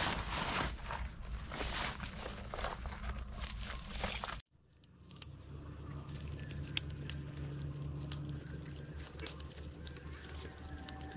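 Rustling and crunching of people moving in forest undergrowth, with small clicks and a steady high whine in the background. The sound cuts out abruptly about four and a half seconds in, then the rustling and clicking go on over a different, even higher steady whine.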